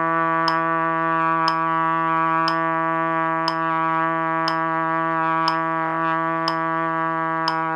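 Trumpet holding one low long tone, steady and unbroken, over a click exactly once a second from a metronome keeping count.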